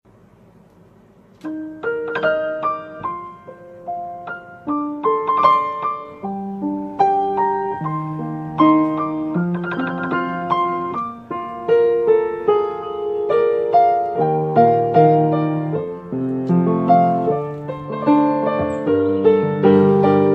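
Background piano music: a slow melody of struck notes over chords, coming in about a second and a half in.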